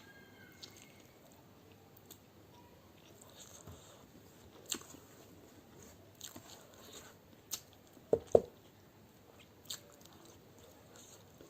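Close-miked chewing and crunching of a mouthful of egg biryani, with scattered sharp clicks and two louder knocks a little past eight seconds in.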